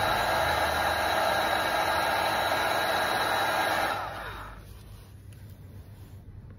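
Electric hot-air blower of the hair-dryer kind running steadily with a rushing noise and a faint whine, switched off about four seconds in, its motor winding down in falling pitch.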